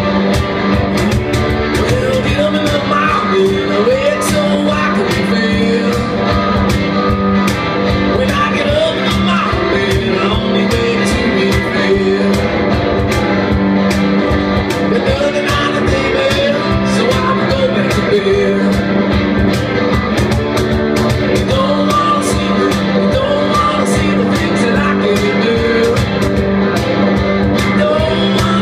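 Live band playing blues-rock: electric guitar and a steady drum beat, with a singer's voice over them.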